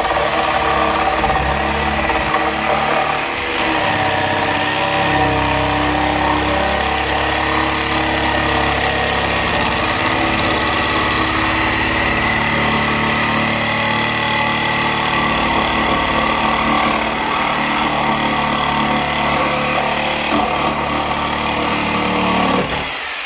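Handheld electric power saw running continuously while cutting into the wooden door jamb and floorboards at floor level, a steady buzzing motor whine that cuts off near the end.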